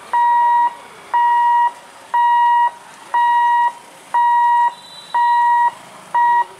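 Level-crossing boom barrier warning buzzer beeping while the barrier lifts to reopen the road. It gives one steady beep about every second, seven in all, with the last one cut short as it stops near the end.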